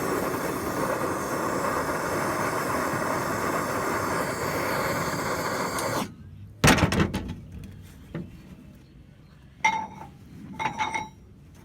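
A steady rushing noise cuts off suddenly about six seconds in. Just after it comes one loud metal clank, then near the end a few lighter ringing metallic clinks as steel parts are handled.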